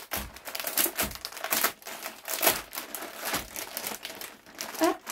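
Clear plastic bag crinkling in quick, irregular crackles as it is pulled open and handled.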